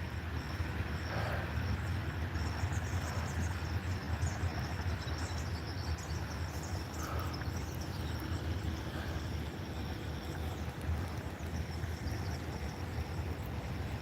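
Steady outdoor background noise: a constant low rumble with a faint, steady high-pitched tone over it.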